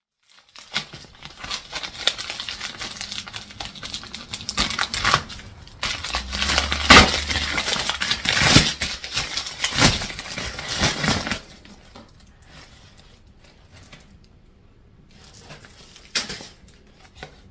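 A shipping envelope being handled and opened by hand: loud crinkling and rustling with sharp crackles for about eleven seconds. After that it goes much quieter, with a few light taps as a small cardboard retail box is handled.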